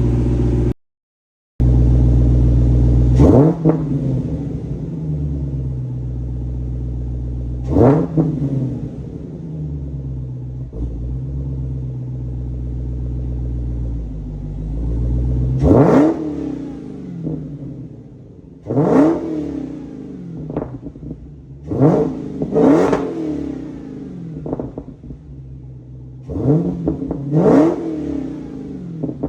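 Dodge Demon 170's supercharged Hemi V8 idling and then given a series of short throttle blips, about eight, each rising quickly in pitch and falling back to idle. The exhaust valves are held open with their actuator springs removed.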